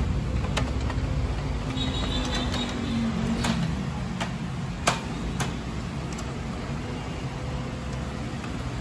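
Handling noise inside an opened inkjet printer: about half a dozen sharp plastic clicks and taps as ink tubes and clips are fitted, the loudest about five seconds in, over a steady low background rumble.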